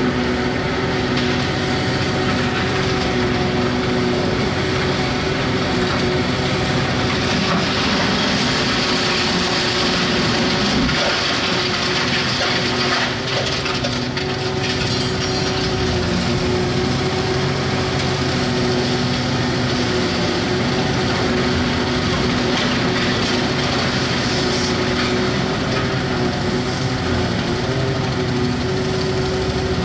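Hitachi 670 LCH demolition excavator running steadily: a loud engine drone with a constant pitched hum.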